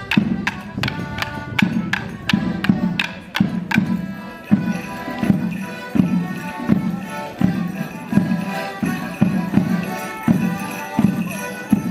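Wooden morris sticks clashing in time, about three sharp clacks a second, over a melodeon playing a lively folk dance tune. The stick clashing stops about four seconds in and the melodeon carries on with a steady beat.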